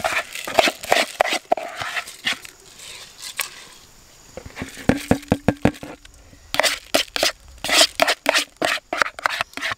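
Chicken broth poured and scooped from a plastic bowl into a metal pot of rice with a plastic ladle: irregular scrapes, splashes and light knocks, with a quick run of taps about halfway through.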